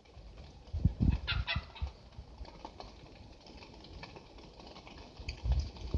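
Short calls from a nearby flock of wild turkeys, with low dull thumps about a second in and again near the end.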